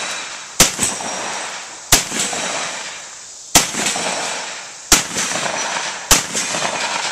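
Shotgun firing slugs: five loud shots, one every second and a half or so, each trailing off in a long echo.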